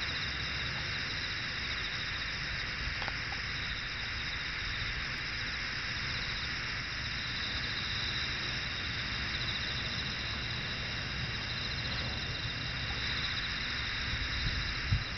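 Chorus of singing insects chirring steadily, many high trills blended into one continuous band, over a low rumble, with a single thump near the end.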